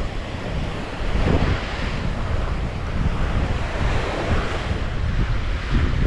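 Surf washing onto the beach in swells, with wind buffeting the microphone.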